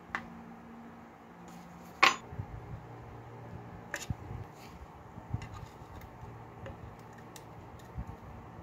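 Light metallic clicks and clinks of small tools on clock parts: tweezers setting parts down in a plastic dish, then a thin screwdriver working on the mechanical alarm clock movement. One sharp click stands out about two seconds in, another about four seconds in, then fainter ticks over a low steady hum.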